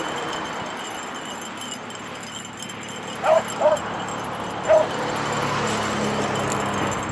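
Beagles trailing a rabbit give three short barks, two close together and a third about a second later, over a steady background hiss.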